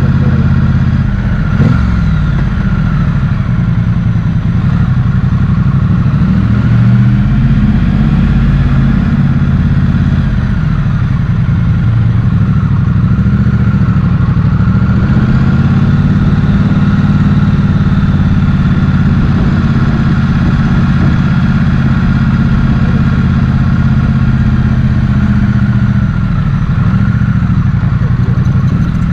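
Motorcycle engine running under way, its pitch rising and falling as the revs change. A single sharp knock comes about one and a half seconds in.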